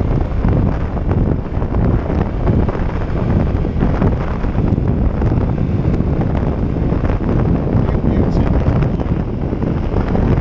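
Steady, loud wind rumble buffeting the microphone on a Honda Innova 125 as it is ridden, with the small engine buried under it.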